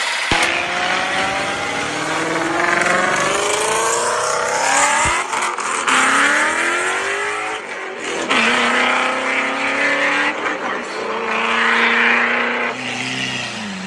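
High-revving racing engine accelerating hard through the gears: the pitch climbs, drops at each shift and climbs again, about four times, then settles lower near the end.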